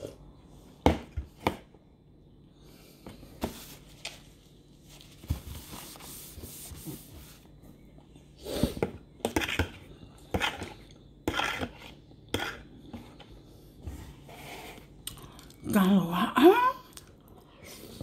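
Metal spoon clicking and scraping against a plastic food tub during eating, in scattered sharp taps and short scrapes. A brief voiced sound comes about two seconds before the end.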